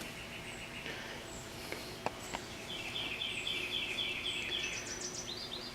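Outdoor ambience with birds singing: short high chirps repeat throughout, and a rapid trill of repeated notes runs from about three to five seconds in. Two faint clicks come a little after two seconds.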